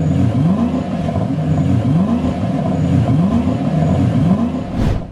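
Car engine revving over and over, each rev a short rise in pitch, ending with a rising whoosh near the end.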